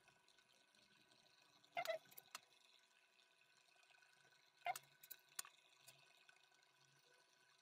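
Near silence broken by a few brief squelching clicks, about two seconds in and again around five seconds, as a small plastic bottle of CA glue is squeezed to put drops onto a pen blank.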